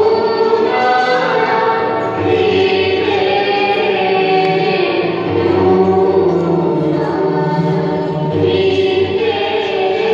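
Devotional choral music: a choir of voices singing long, held notes that change slowly, the accompaniment to the dance.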